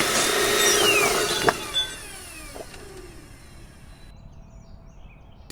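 Wood chipper sound effect: a loud whirring, grinding machine noise with two sharp clunks about a second and a half in, then winding down and fading away.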